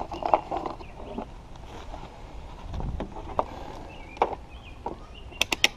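Handling noise from a multimeter and its test leads: scattered knocks and rustles, then a quick run of about five sharp clicks near the end.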